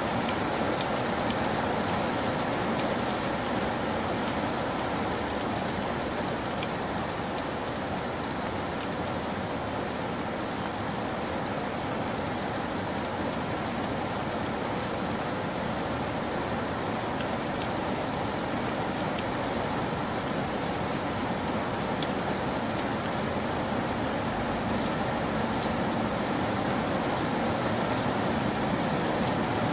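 Steady rain falling: an even hiss with scattered sharper drop ticks throughout.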